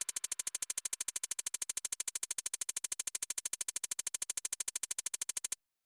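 Rapid, perfectly even clicking, about twelve clicks a second, that cuts off suddenly near the end.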